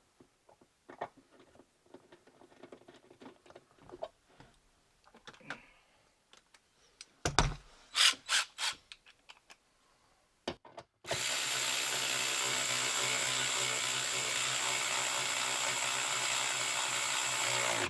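Small clicks and knocks of parts and fasteners being handled, then a cordless power driver running steadily for about seven seconds as it runs in the mounting bolt of a new fuel pump driver module, cutting off near the end.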